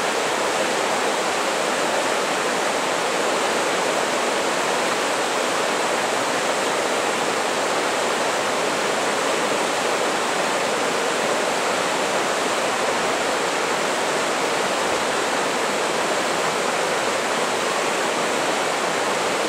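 The Dungeness River rushing over shallow, rocky riffles: a loud, steady, even rush of flowing water.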